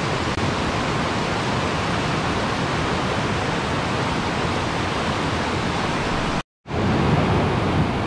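Shallow river rapids and a low cascade rushing steadily over rocks. The sound cuts out completely for a fraction of a second about six and a half seconds in, then resumes.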